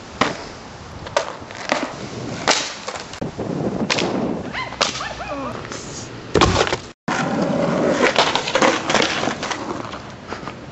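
Skateboard rolling on pavement, with a series of sharp clacks from the board popping and landing. The sound cuts out for a moment about seven seconds in, then the rolling comes back.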